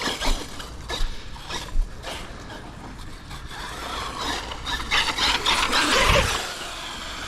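Arrma Fireteam 6S BLX radio-controlled car driving: drivetrain gear whir and tyres scrabbling over concrete, with scattered clicks and a louder run of tyre and motor noise about five to six seconds in.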